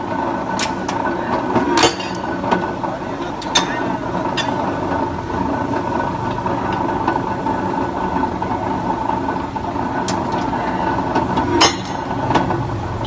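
Three-phase electric rebar cutter running with a steady motor and gearbox hum, with several sharp metallic clanks of the cutting blade and steel bar.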